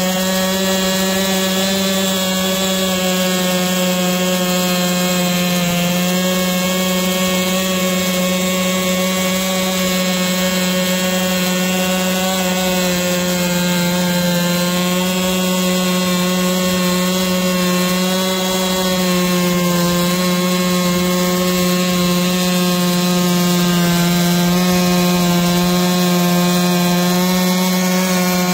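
Holzfforma G660 two-stroke chainsaw (an MS660 clone) held at full throttle on a chainsaw mill, ripping steadily lengthwise through a log. The engine note stays even, dips slightly about two-thirds of the way through and rises a little near the end.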